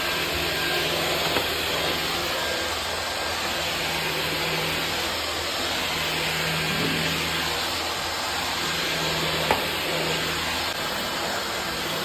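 Dyson V15 cordless stick vacuum running steadily, a constant motor and airflow noise with a low hum. There is one small tick about nine and a half seconds in.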